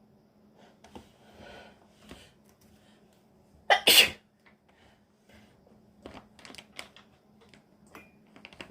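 A woman sneezes once, loudly, about four seconds in, with a faint breathy intake a couple of seconds before. The sneeze is put down to a dust allergy or a lingering cold. A few light clicks and knocks follow later.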